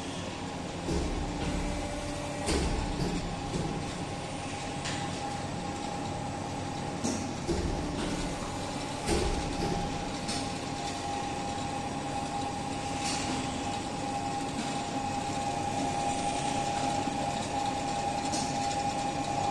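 Automatic bean-flour cake making machine running: a steady mechanical hum with a high whine that grows stronger through the second half, and scattered clicks and knocks every few seconds.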